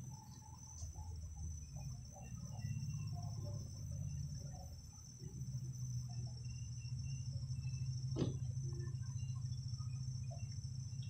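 Insects trilling steadily in one high, even tone over a low steady hum, with a single sharp click about eight seconds in.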